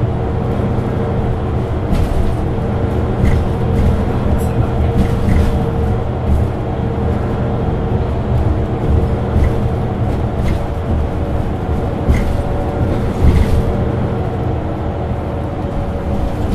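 Mercedes-Benz Citaro 2G articulated bus's diesel engine running steadily with an even hum, and a few short high blips and clicks scattered through.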